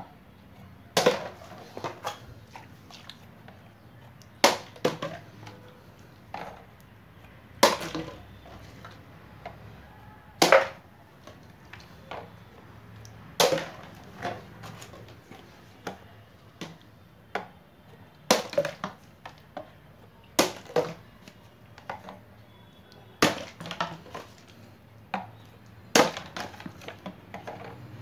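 A partly filled plastic water bottle flipped again and again, landing with a sharp knock about nine times, a few seconds apart. Each hit is followed by a few smaller knocks as the bottle topples and bounces.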